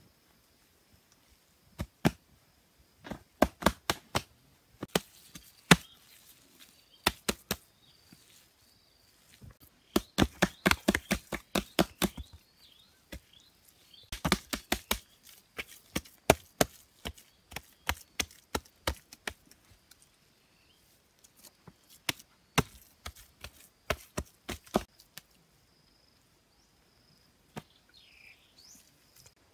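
Wet plaster mix being slapped and patted by hand onto a packed earth wall: quick runs of sharp slaps in bursts with short pauses between. Insects drone faintly underneath.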